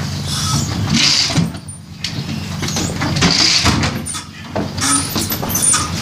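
Metal hand truck rattling and clattering as it is wheeled over a doorway and threshold, over a steady low hum.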